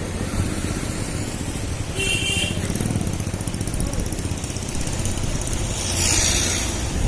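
Road traffic with a motor vehicle engine running close by, plus short high-pitched sounds about two seconds in and again near the end.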